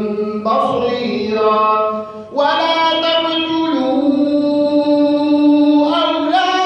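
An imam's voice chanting Quran recitation in the melodic tajweed style, holding long drawn-out vowels. There is a short pause for breath about two seconds in, then one long held note.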